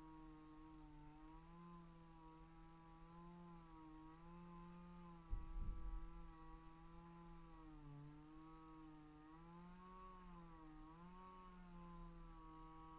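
Two-stroke chainsaw running faintly at high speed, its pitch dipping and recovering again and again as if loaded in a cut. A loud thump about five seconds in.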